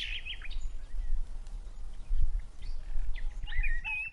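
Small birds chirping, with quick rising and falling notes near the start and again in the last second, over a steady low rumble.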